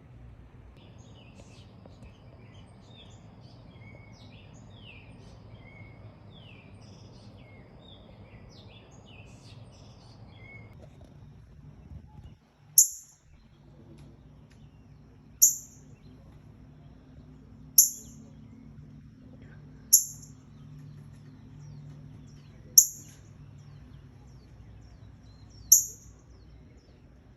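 Faint scattered bird chirps over a low steady background hum, then about halfway through a bird's short, sharp, high-pitched call repeats loudly six times, roughly every two and a half to three seconds.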